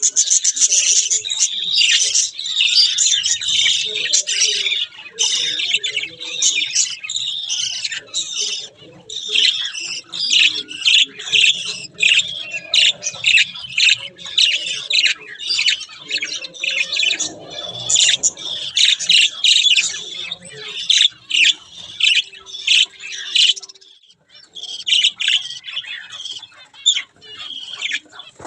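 A flock of budgerigars chirping and chattering, many short high calls overlapping, with a brief lull near the end.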